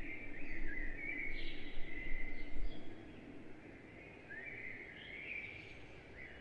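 Birds chirping: short, repeated gliding calls over a quiet outdoor background. A low rumble accompanies them for the first three seconds, then drops away.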